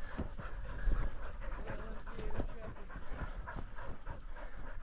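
German pointer hunting dogs panting hard with quick, irregular breaths, mixed with rustling and small crackles close to the microphone.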